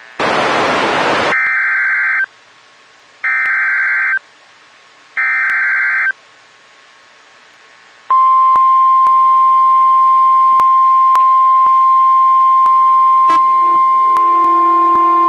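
Emergency Alert System SAME header: three warbling data-tone bursts, each about a second long with second-long gaps, the first opening with a burst of static. Then the National Weather Service's single steady attention tone sounds loudly, with a lower droning tone added over it near the end.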